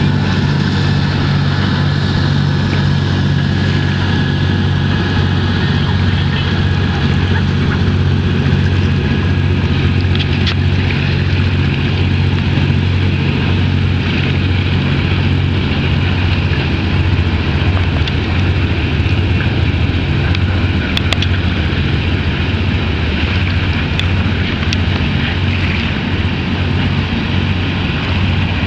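Boat engine running steadily with a constant low drone over a wash of noise, a few faint clicks here and there.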